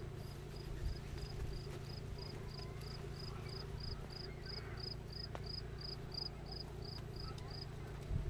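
A cricket chirping in short, even pulses at one high pitch, about three a second, stopping shortly before the end, over a steady low rumble.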